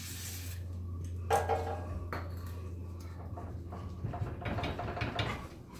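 Hand tools clanking and tapping on rusty steel car suspension parts: a ringing clank about a second in, then a cluster of clanks near the end, over a steady low hum.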